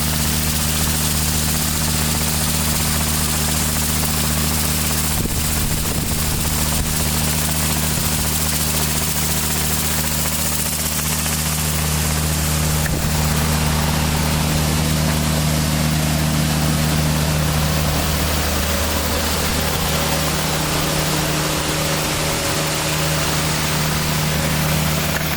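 A 28 HP Kubota diesel engine driving an Alkota hot-water pressure washer runs steadily at constant speed. Over it is the loud, even hiss of high-pressure water spraying from a 48-inch rotary surface cleaner onto concrete.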